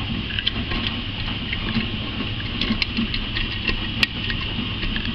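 Front-loading laundrette washing machine turning its drum with a load of small darks during the cool-down, a steady hum with light scattered clicks and one sharper click about four seconds in.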